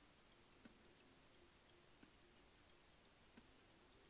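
Near silence, with faint light ticks about once every second and a half.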